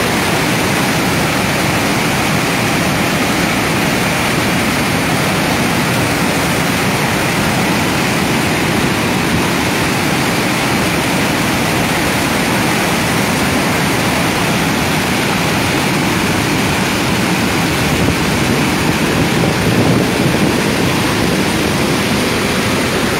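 Loud, steady roar of a large waterfall, heavy river water pouring over a broad rock ledge.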